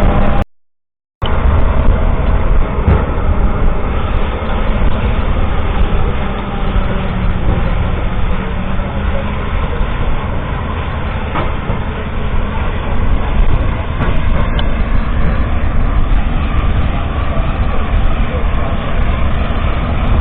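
Kubota M7172 tractor's 6.1-litre four-cylinder turbo diesel running with the Vicon FastBale round baler-wrapper working behind it: steady, loud machinery noise with a deep rumble. The sound cuts out briefly about half a second in.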